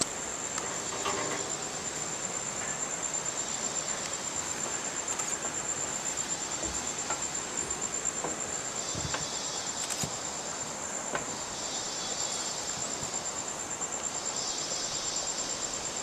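Insects calling: a steady, high-pitched pulsing trill, joined from about nine seconds in by a second, lower buzz that comes and goes.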